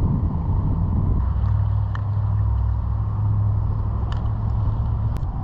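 Steady low rumble of a vehicle engine running, with a few light clicks over it.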